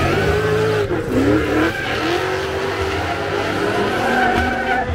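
Two drift cars in a tandem battle, their engines revving up and down repeatedly at high revs while the tyres squeal and skid through the slide.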